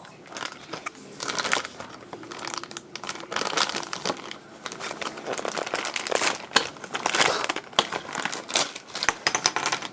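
Plastic toy packaging being handled and opened, crinkling and rustling irregularly, with a run of sharp crackles in the second half.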